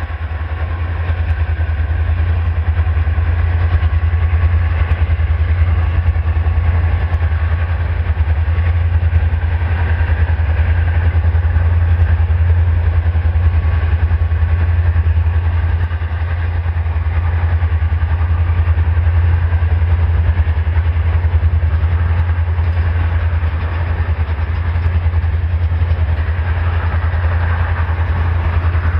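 Container flat wagons of a freight train rolling past: steady wheel-on-rail noise over a constant low drone.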